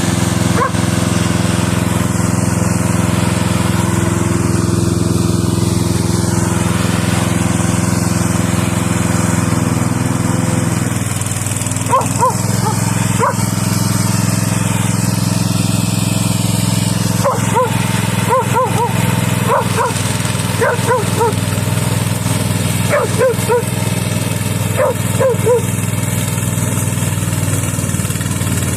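The engine of a VTLM800 remote-controlled tracked lawn mower runs steadily, its sound shifting slightly about eleven seconds in. From about twelve seconds on, a dog barks over it, repeatedly and in short groups of barks.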